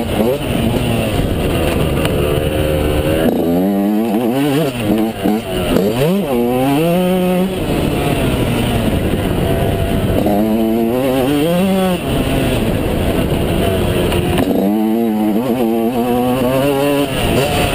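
Yamaha YZ125's two-stroke single-cylinder engine, heard from on board, revving hard under acceleration and dropping off between pulls, the revs climbing and falling several times as the rider works the throttle and gears, with a constant rush of wind noise.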